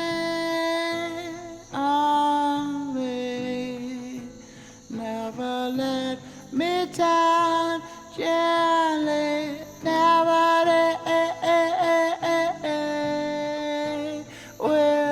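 Music: a singing voice holding long notes, some sliding into the next pitch, over a quiet accompaniment.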